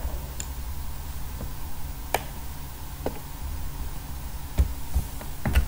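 A handful of scattered computer mouse clicks over a steady low background hum.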